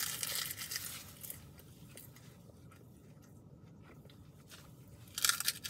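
Close chewing of a mouthful of rice wrapped in crisp roasted seaweed (gim): crackly crunching for about the first second, then softer chewing, and another short burst of crackling near the end.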